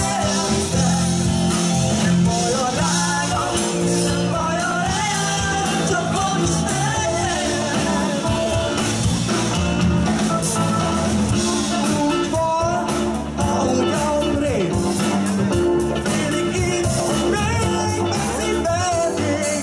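Live band playing a song, with a man and a woman singing together over bass guitar and drums.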